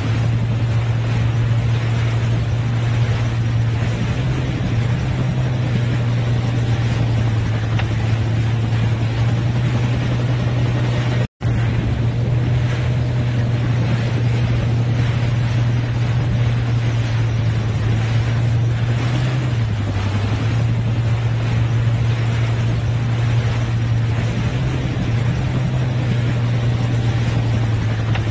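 CH-47 Chinook tandem-rotor helicopter hovering low and then pulling away, with loud, steady rotor and turbine noise over a low hum. The sound cuts out for a moment about eleven seconds in.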